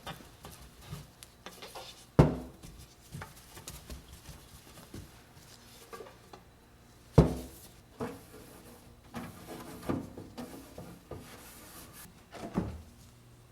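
Handling noises while cleaning out a refrigerator: two sharp knocks about 2 and 7 seconds in, with lighter clatter and rubbing between them, as containers and parts are set down and wiped.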